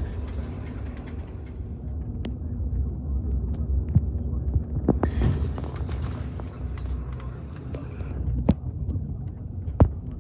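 Low, steady engine and road rumble heard from inside a moving vehicle, with a few sharp clicks or rattles. A louder rushing noise swells for about three seconds in the middle.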